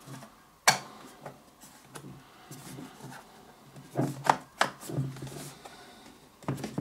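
Handling of a plastic portable DAB radio on a wooden table: its battery cover is pressed and rubbed by hand, with a sharp click a little under a second in, a few light knocks about four seconds in, and soft rubbing on the plastic case.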